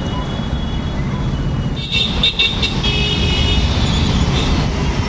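Busy road traffic: a steady low rumble of passing cars and motorbikes, with vehicle horns sounding from about two seconds in.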